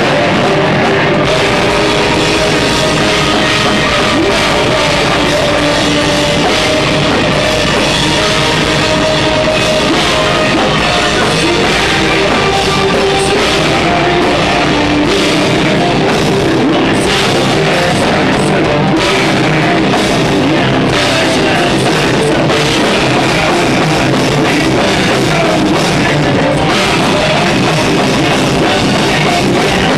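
Live heavy rock band playing loud, with distorted electric guitars over a drum kit, held at a steady high level with no breaks.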